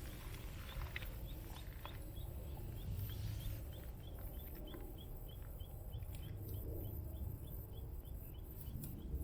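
Small wood fire crackling in a titanium solo fire pit, with a few sharp pops and a low steady rumble. Through it runs a high, short chirp repeated about three times a second.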